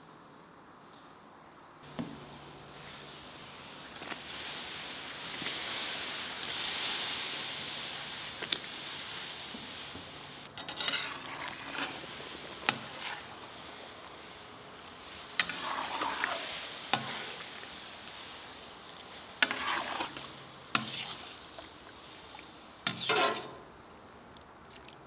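Broth boiling hard in a pot while a metal ladle stirs it, knocking and scraping against the pot's sides several times with sharp clinks; the bubbling starts about two seconds in.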